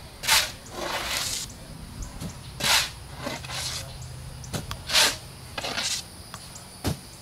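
Shovel digging sandy soil in a trench: short scraping swishes of the blade going in and the dirt being thrown, coming in rough pairs about every two and a half seconds, with a couple of sharp knocks.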